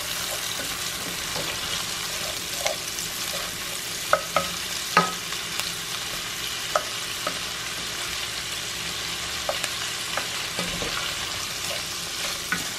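Sliced sausages and onions sizzling in butter and bacon grease in a stainless steel skillet, stirred with a spoon. The frying is a steady hiss, and the spoon scrapes and clicks against the pan a few times.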